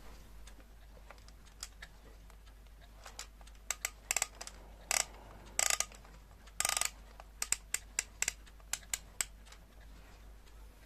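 Irregular clicks and a few brief scrapes, about a dozen in all, from a Citizen Bulldog alarm clock being handled, over a faint low hum.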